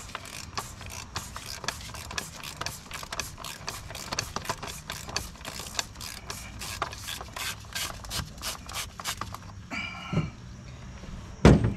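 Socket ratchet with a 36 mm socket clicking in a quick, uneven run as it backs off the plastic oil filter housing cap on a Ford 6.0 Powerstroke diesel. The clicking stops about nine seconds in, and a loud thud follows near the end.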